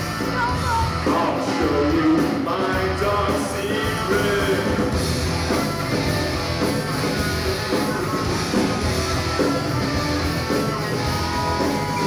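Live rock band playing a song, with a singer over electric guitar and a full band.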